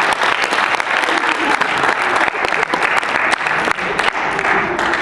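Audience applauding steadily, with some voices mixed in.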